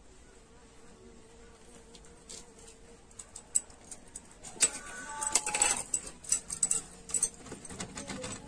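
Fingers scraping spice paste around a steel bowl and handling okra, with bangles clinking; the scraping and clicking pick up about halfway through and are loudest for a second or two before easing off.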